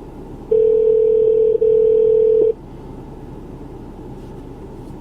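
A steady electronic beep: one loud, clean tone held for about two seconds with a short break in the middle, over a low background rumble.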